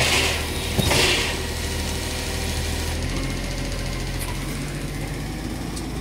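Garbage truck engine running steadily nearby, its note shifting about halfway through, with two short hisses in the first second.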